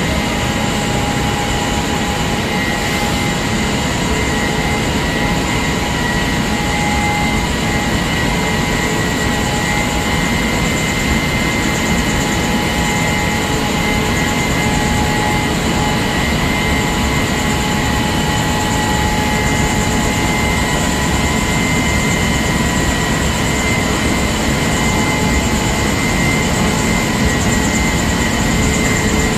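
Gravure printing press for paper and film running at production speed: a loud, steady, even machine noise from its rollers and drives, with several steady high whines held throughout.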